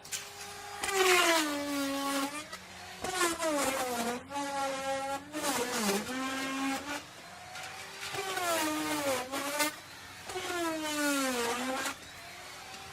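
Electric wood router running, its high motor whine dropping in pitch each time the bit bites into the wood and climbing back as it frees up. This happens about five times, with a rough cutting noise under each dip.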